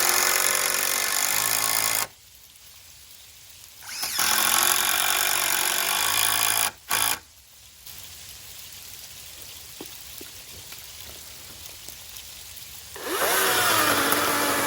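Handheld power tool running in several bursts of two to three seconds, with short quiet gaps between. In the last burst the motor's pitch drops and then holds steady as it takes up load.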